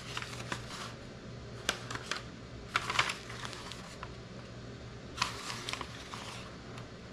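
Sheet of paper rustling and crinkling in the hands in short scattered bursts, busiest about a third of the way in and again near two-thirds, over a low steady hum.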